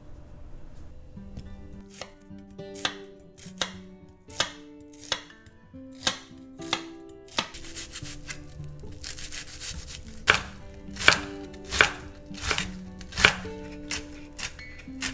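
Chef's knife chopping an onion on a bamboo cutting board, about one and a half strikes a second, starting about two seconds in. The strokes grow louder and sharper in the second half as the onion is minced.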